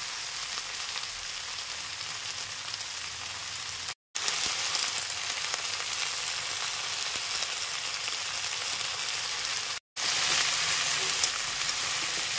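Water spinach stalks with potato and brinjal frying in hot oil in a kadai, a steady sizzle. It cuts out for a moment twice.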